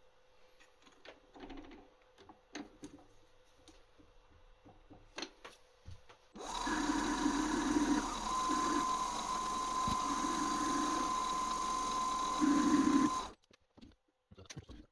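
Small clicks of calipers and hand tools, then a small metal lathe starts and runs for about seven seconds with a steady whine while the tool cuts the spinning round bar, and stops abruptly; a few more clicks follow.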